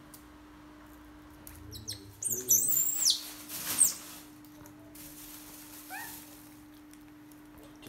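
Several sharp, high-pitched chirping calls, loudest about two to four seconds in, then a few softer rising squeaks about six seconds in, over a steady low hum.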